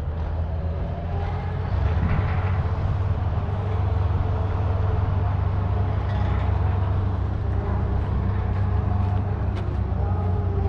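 A motor vehicle's engine running steadily: a constant low rumble, with a few faint ticks near the end.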